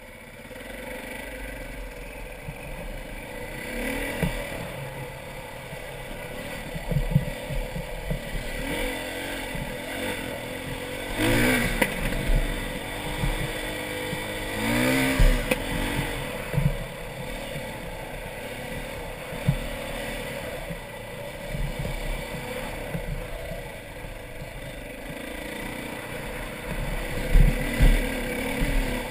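Dirt bike engine running as the bike is ridden over a rough trail, its pitch rising sharply as it revs up about eleven seconds in and again about fifteen seconds in. Short knocks and rattles from the bike over the rocky ground.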